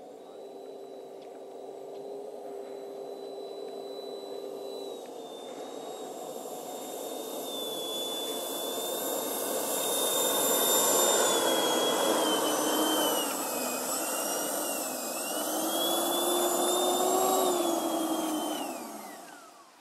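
Schübeler HDS 120 mm electric ducted fans of a large RC Airbus A350 model whining as it taxis toward the listener, growing louder as it approaches. The pitch wavers with throttle changes, then falls sharply as the fans spool down near the end.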